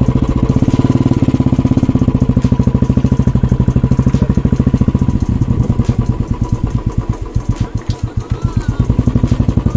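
Royal Enfield Bullet's single-cylinder engine running at low speed in a low gear, its exhaust beating fast and evenly. It eases off briefly near the end before picking up again.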